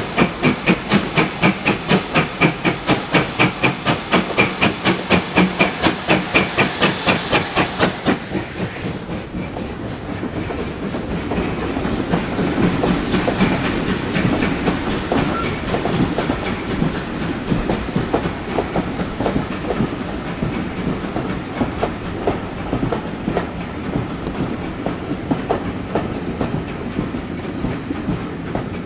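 GWR Modified Hall class 4-6-0 No. 6989 Wightwick Hall working hard with a train, its two-cylinder exhaust beating about three times a second. The beats cut off about eight seconds in. Its coaches then roll past with a steady rumble and the clickety-clack of wheels over rail joints.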